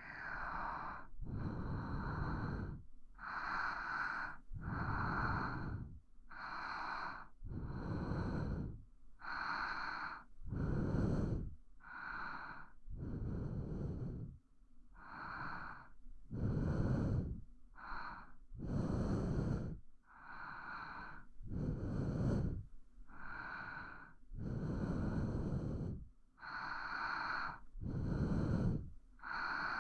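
A person breathing slowly and steadily close to the microphone, each breath in and each breath out heard as a separate soft rush of air, about one full breath every two to three seconds. These are ASMR breathing sounds meant as a sleep aid.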